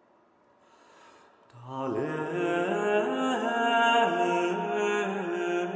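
Near silence for about a second and a half, then a slow liturgical chant begins: long held notes that step up and down in pitch, starting low and climbing.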